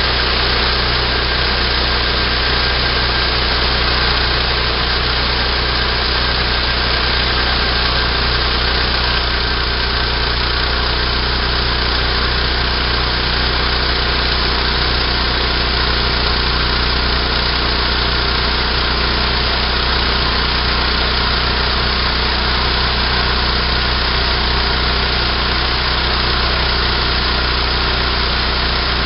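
Small gasoline engine of a homemade bandsaw sawmill running at a steady speed, with no change in pitch or loudness.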